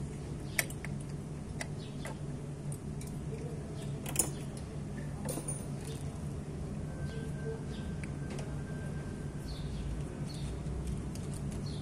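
Sparse clicks and knocks of metal parts and a hand tool being handled at a scooter's belt-drive transmission case. The loudest is a sharp knock about four seconds in, over a steady low hum, with faint bird chirps.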